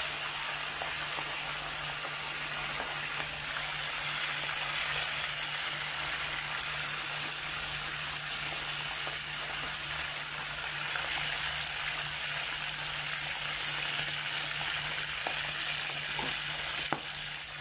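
Fish, said to be tuna, frying in hot oil in a pan: a steady sizzle and crackle of bubbling oil, with a low steady hum underneath.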